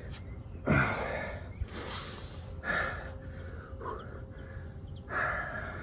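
A winded man breathing hard after a high-intensity bodyweight cardio round: about four heavy, gasping breaths roughly a second apart.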